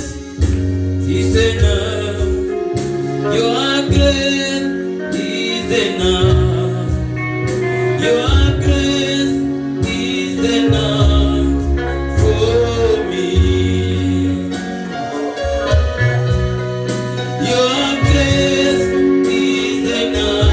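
Gospel praise-and-worship music: singing over a band with a bass line that moves step by step.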